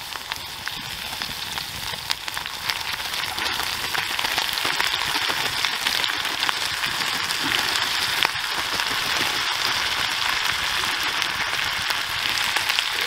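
Butter, chicken and garlic sizzling in a cast iron skillet over a wood-burning stove as cooked rice is tipped in. The sizzle grows louder over the first few seconds, then holds steady, with small scattered pops.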